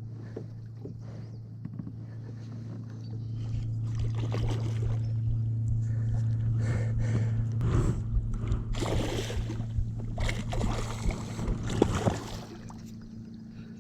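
Water splashing and sloshing around a kayak as a big hooked muskie fights at the surface. The splashes are busiest from about three seconds in until near the end, over a steady low hum.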